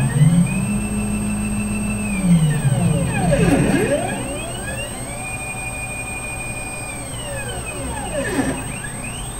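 Stepper motors of a belt-driven CNC gantry moving the thread nozzle: a whine that rises in pitch as each move speeds up, holds steady, then falls as it slows, about three moves in a row.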